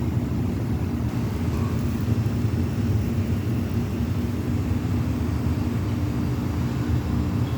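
5.9 Cummins 12-valve inline-six diesel engine running steadily, a constant low rumble. The engine has an exhaust leak.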